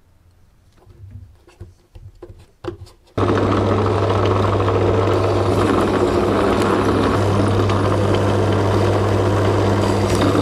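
A few light knocks, then a bench drill press starts suddenly about three seconds in and runs with a steady motor hum while it drills holes in a thin aluminum plate.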